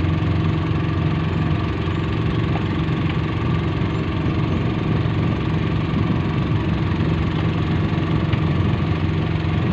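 A small boat's engine running steadily at an even speed, with no change in pitch.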